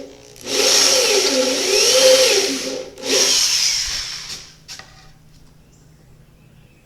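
Electric drill with a step bit boring holes into a wooden board, in two runs of about two and a half and one and a half seconds, the motor pitch wavering as the speed changes.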